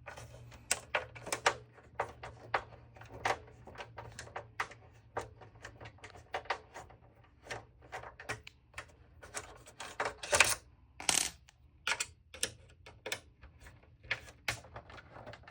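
Irregular small clicks and taps, two or three a second, from the plastic casing of an original Xbox 360 being worked apart by hand. A couple of louder knocks come about ten and eleven seconds in.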